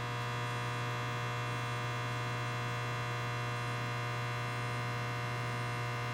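Bridgeport Series 1 2 hp variable-speed milling machine running, its motor and spindle giving a steady hum with a strong low tone and a whine above it; it cuts off abruptly at the end.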